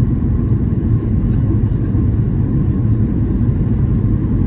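Steady low rumble inside the cabin of a Boeing 737-800 on final approach: engine and airflow noise with the landing gear down and flaps at 30.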